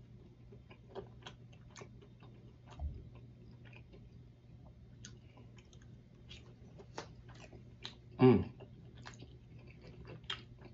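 A person chewing a mouthful of food, with scattered lip smacks and light clicks of a fork against the dish. About eight seconds in comes a short hummed sound that falls in pitch, the loudest sound here.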